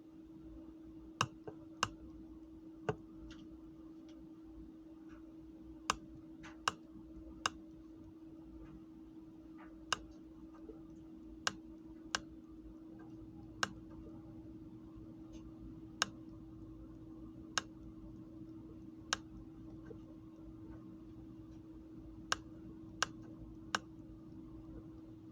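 Switch of a signalling light clicking as Morse code is flashed: single sharp clicks at irregular spacing, sometimes two or three in quick succession, with longer pauses between groups. A faint steady low hum runs underneath.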